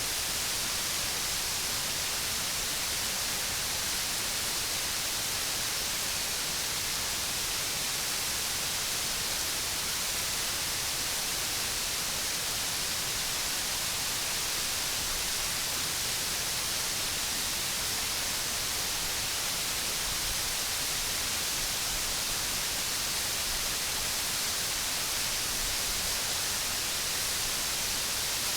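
Large waterfall: a steady, even rush of falling water, heaviest in the high hiss, unchanging throughout.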